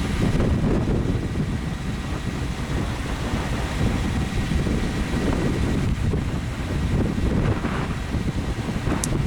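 Wind buffeting the microphone: a loud, irregular low rumble that rises and falls in gusts, with one short sharp click near the end.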